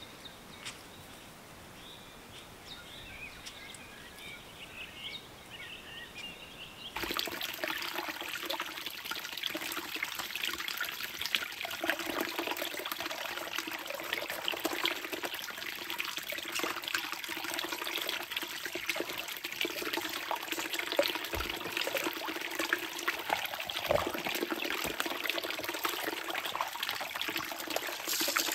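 A river running over stones, a steady rush of water that comes in suddenly about seven seconds in. Before that there is only quiet outdoor ambience with a few faint high chirps.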